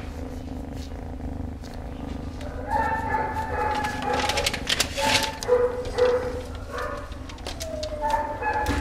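Two-month-old gray tabby kitten purring steadily while being stroked. Dogs whine and bark in the background from about three seconds in.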